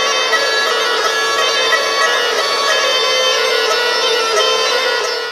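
Dalmatian mih bagpipe, with a skin bag, playing a tune: a steady held note sounds under a shifting, reedy melody. It breaks off abruptly near the end.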